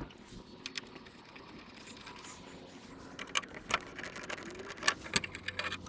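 A few sharp clicks and light knocks of a T20 driver and small bolts being handled while the bike's swing-arm cover bolts are undone, over a faint steady hum. Most of the clicks come in the second half.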